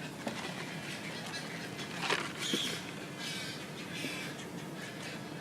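Birds calling briefly over a steady outdoor hiss.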